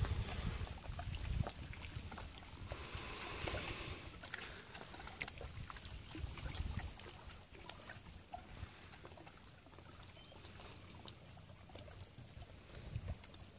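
Faint lapping and trickling of lake water around a small boat, with scattered small ticks. A low rumble fades out over the first few seconds.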